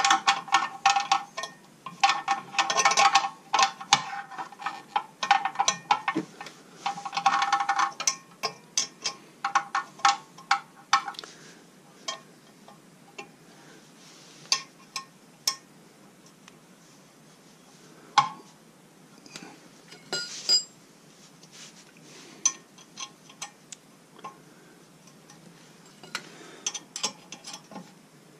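Steel wrench working the bolts that hold the blades to a Landworks wood chipper's flywheel: rapid metallic clicking with a ringing tone for about the first ten seconds, then scattered clinks of metal on metal and a couple of sharper knocks.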